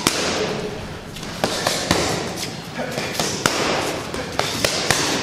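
Boxing gloves striking focus mitts, an irregular string of sharp smacks, about eight or nine, over a steady noisy background.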